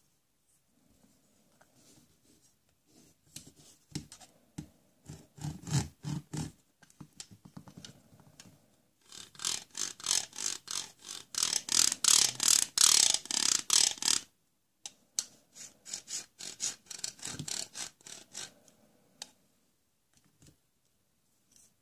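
Plastic toy hacksaw blade being drawn back and forth across a plastic toy block, a rasping scrape in three runs of quick strokes, the middle run the loudest.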